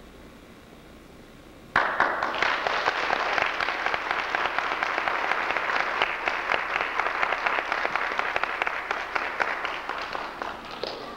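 Audience applauding, breaking out suddenly about two seconds in after a faint quiet stretch and carrying on steadily, easing slightly near the end.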